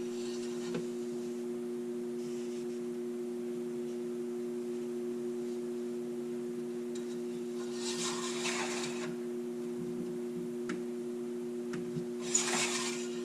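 A steady two-tone hum, with two short rubbing noises about eight and twelve seconds in.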